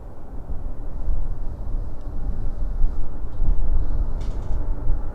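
Low, steady rumble of a Boeing 767's jet engines at taxi power.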